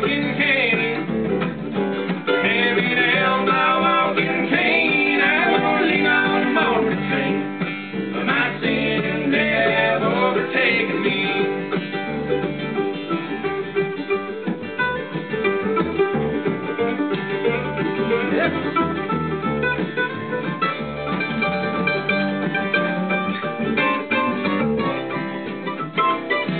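Bluegrass band playing live: mandolin, acoustic guitar and upright bass, with a wavering high melody line over the first ten seconds or so.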